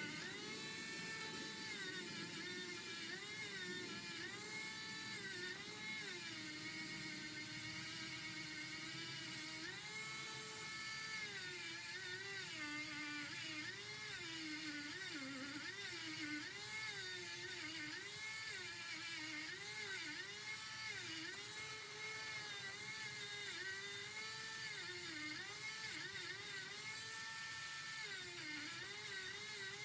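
Small high-speed electric rotary tool whirring, its pitch sagging and recovering again and again as it is pressed into the work and eased off.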